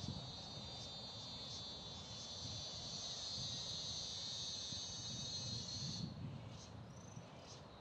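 An insect buzzing steadily at a high pitch, stopping abruptly about six seconds in, followed by a few short high chirps, with a low rumble underneath.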